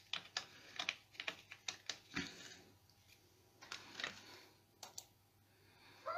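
Faint, irregular light clicks and taps of small plastic crafting supplies being handled and set down on the work table, with a few short soft scraping sounds.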